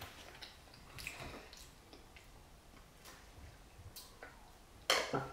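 Faint, scattered small clicks and ticks at uneven intervals, with a short louder noise near the end.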